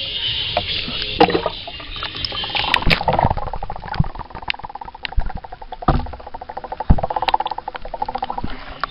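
Muffled underwater bubbling and gurgling in a swimming pool, heard through a submerged camera's microphone, with a few dull knocks along the way.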